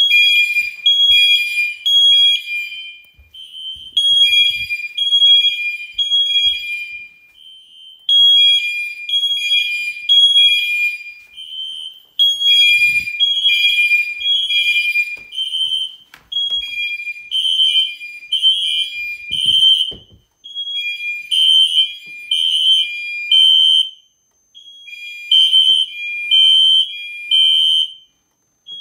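Home fire alarm system in alarm, its horns sounding the temporal-three evacuation pattern: loud high beeps in groups of three, repeating about every four seconds, at two slightly different pitches. The alarm was triggered by a smoke detector set off with a smoke tester.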